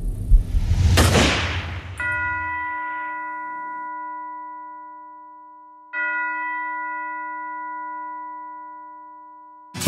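A noisy whoosh about a second in, then a deep bell-like chime struck twice, about four seconds apart, each one ringing out slowly: an intro sound effect for a music video's title cards.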